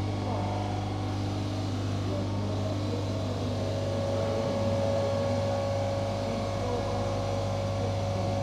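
Monster 2 five-axis CNC bridge saw running: a steady low hum with a higher steady tone that shifts up about three to four seconds in, as the saw head moves across the slab.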